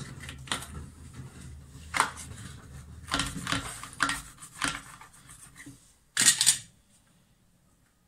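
Sealant removal tool scraping old silicone out of the joint between a ceramic washbasin and wall tiles, in a series of short, sharp strokes. The loudest stroke comes a little after six seconds.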